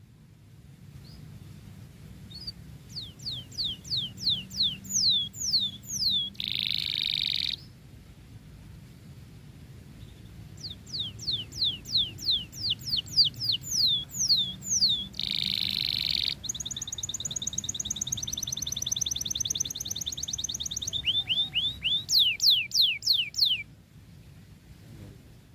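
Domestic canary singing a vigorous song: runs of quick, sharply falling whistled notes, a short harsh buzzing roll twice, and a fast even trill in the later half. The song breaks off shortly before the end, over a steady low hum.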